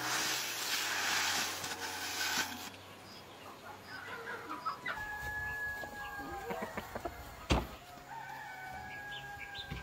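Rice grain being raked on a drying floor, a dry rustling hiss for the first two and a half seconds. A rooster then crows, one long drawn-out call about five seconds in and another near the end, with a single sharp knock between them.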